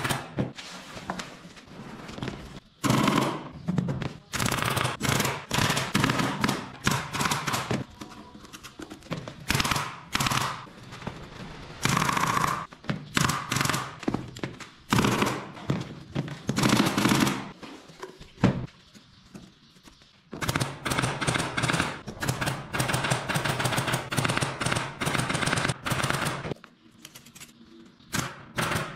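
Meite pneumatic upholstery staple gun firing staples through fabric into a wooden frame. The sharp shots come in quick runs, with short pauses between them.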